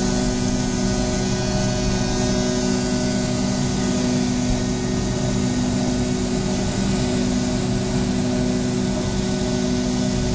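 Jet airliner engines at takeoff power, heard from inside the passenger cabin during the takeoff roll: a steady drone with several held hum tones over a low rumble.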